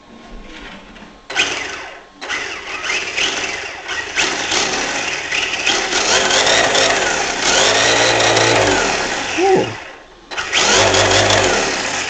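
Electric RC short-course truck's 5,200 kV brushless motor and drivetrain whirring under throttle blips. A short burst comes first, then a long run. It winds down in pitch shortly before a brief pause, then gives another burst near the end.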